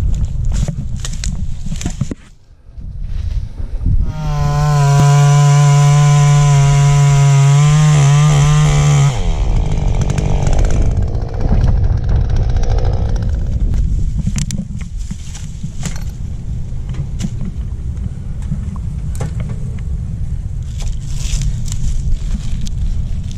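A chainsaw starts running suddenly, holds a steady high pitch for about five seconds, then wavers and drops away. Before and after it come wind on the microphone and the rustle and clink of climbing gear against the trunk.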